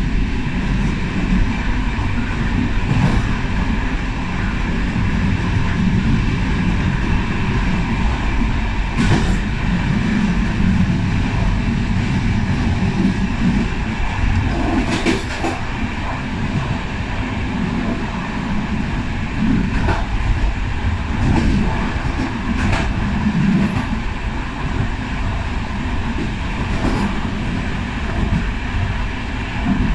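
Passenger train running along the line, heard from the rear of its last coach: a steady rolling rumble of the wheels on the rails, with a few sharp clicks scattered through it.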